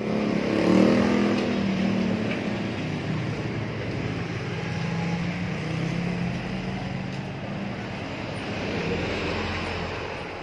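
Steady motor-vehicle engine and road-traffic noise, loudest about a second in.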